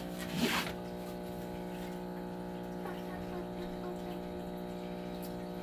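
Steady hum with an even stack of overtones, unchanging throughout, and a short rustling noise about half a second in.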